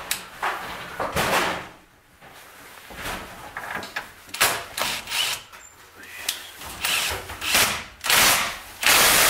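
Cordless power tool run in repeated short bursts against metal at a brake caliper bracket, the longest bursts near the end.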